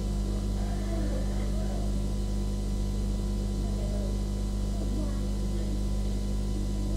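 Steady low electrical hum with evenly spaced overtones, like mains hum, running unchanged throughout. Faint voices sound in the background.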